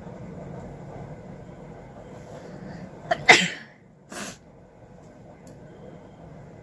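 A woman's sneeze about three seconds in: a brief catch, then one loud, explosive burst, followed a moment later by a short, quieter breathy sound.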